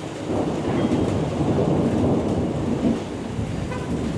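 Rolling thunder rumbling low, swelling up shortly after the start and easing off over the last second, with rain falling throughout.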